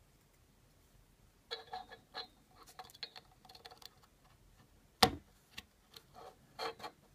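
Small circuit boards handled on a wooden tabletop: light clicks and taps from about a second and a half in. About five seconds in comes one loud, sharp click as the radio interface board's header connectors are pushed onto the pins of the adapter board.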